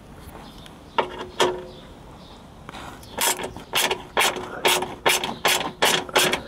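Ratchet wrench with a long Torx extension clicking as it loosens a screw of the plastic engine undertray: two single strokes about a second in, then a regular run of ratchet strokes, about two to three a second, from about three seconds in.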